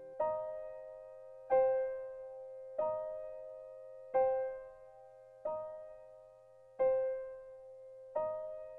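Slow, gentle background piano music: a soft chord struck about every second and a half, seven times, each one ringing and fading before the next.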